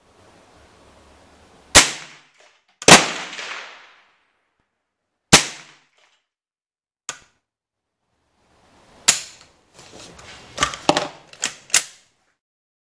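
Four single shots from an AR-15 fitted with an NEA .22 LR conversion unit, firing CCI Standard Velocity rounds, each a sharp crack with a short ring-out, spaced one to four seconds apart. Near the end comes a quicker run of quieter sharp clicks and cracks.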